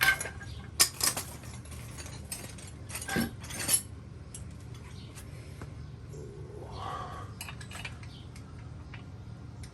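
Metal wrenches clinking and clanking as they are picked through and tried on a bolt. Several sharp clanks come in the first four seconds, then lighter ticks.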